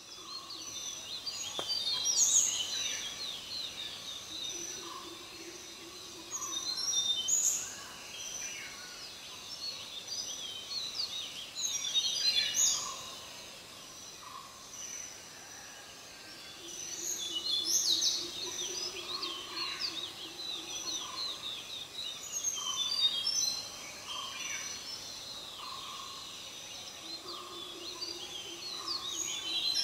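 Several forest birds singing together, with one loud song phrase of quick falling notes returning about every five seconds over constant chirping, and a steady high whine underneath.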